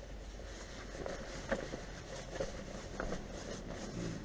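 Rustling of a heavy winter coat being pulled on and handled, with a few short knocks.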